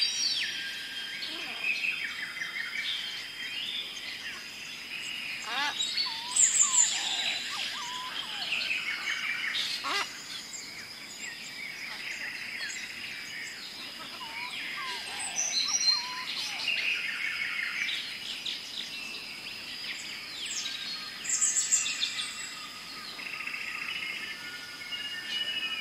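Many birds chirping and calling at once, short overlapping chirps, trills and whistles, over a steady high-pitched tone.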